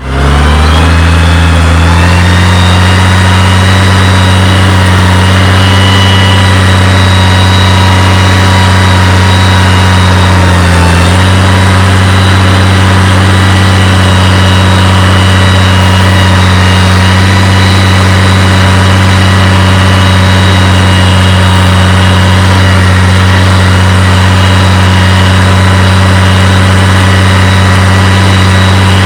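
Valtra 1880 tractor's diesel engine running steadily with a deep, throaty rumble. The pitch settles about two seconds in and dips briefly around eleven seconds.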